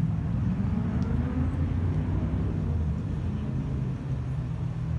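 Low, uneven rumble of wind buffeting a phone's microphone while walking outdoors.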